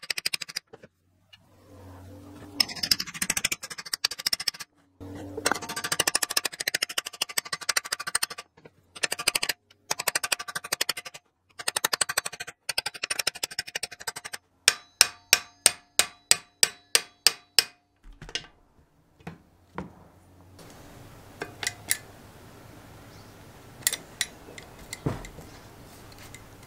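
Hammer tapping rapidly on a small engine's flywheel, the metal ringing, to knock it loose from the crankshaft. About halfway through comes a run of about ten evenly spaced, harder strikes, roughly four a second. After that there are only a few faint clicks.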